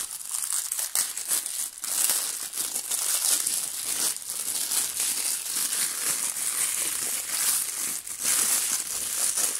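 Thin clear plastic bag and wrapping crinkling and rustling continuously as hands work a cube puzzle out of it.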